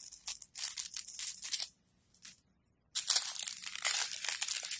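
Small clear plastic bags of diamond painting drills crinkling and rustling as they are handled, in two spells with a pause of about a second between them; the second spell, starting about three seconds in, is denser.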